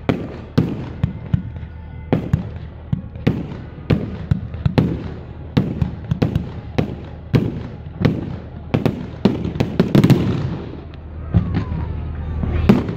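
Fireworks going off: a string of sharp bangs, roughly one or two a second, with a denser stretch of crackling about ten seconds in.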